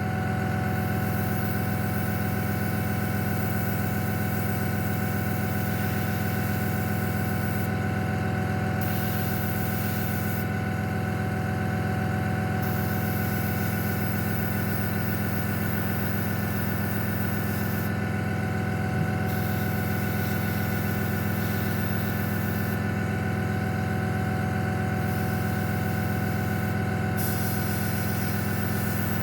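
Small airbrush compressor running steadily with a low hum. The airbrush's air hiss comes and goes in spells of a few seconds as the trigger is worked.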